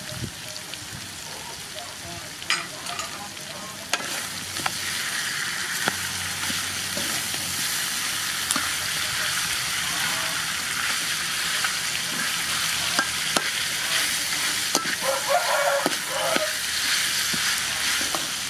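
Chicken pieces and sliced onion sizzling in a wok while a metal spatula stirs them, with scrapes and sharp clicks of the spatula against the pan. The sizzle grows louder about four seconds in.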